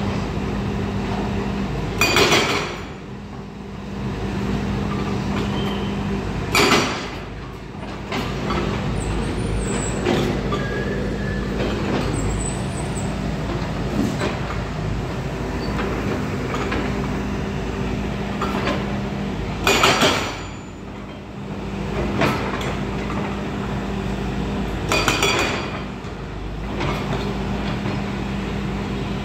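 Volvo excavator's diesel engine running steadily, with four loud, short crashes of bucket and stone, about 2, 7, 20 and 25 seconds in.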